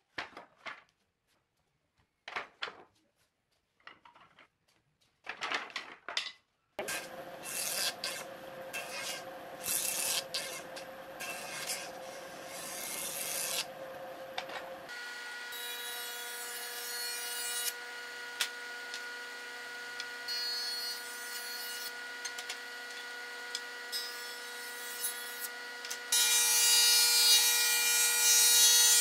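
Wooden boards knocking and clattering as they are handled. About seven seconds in, a combination jointer-thickness planer starts running: a steady motor hum with the cutter block shaving boards. Near the end the cutting gets louder as a board feeds through the thickness planer.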